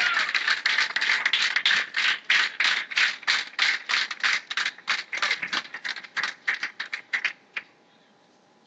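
A small crowd clapping, the claps dense at first, then thinning out to a few scattered claps and stopping about seven and a half seconds in.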